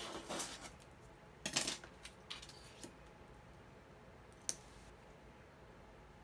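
A few short clicks and rustles of thin metal die-cutting frames being picked up and laid onto cardstock, with one sharp click about four and a half seconds in.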